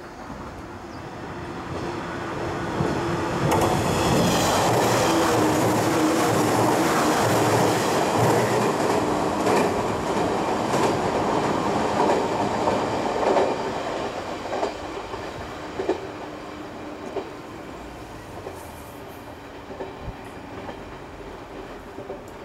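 Electric train passing close by on steel rails, with wheels clacking over rail joints and a steady motor hum. It builds over the first few seconds, is loudest from about 4 to 13 seconds in, then fades away.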